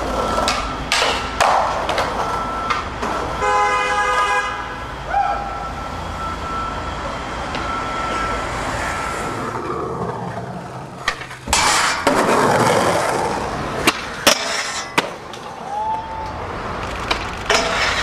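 Skateboard wheels rolling on pavement, with sharp clacks and knocks of the board hitting the ground. A car horn honks for about a second, about four seconds in.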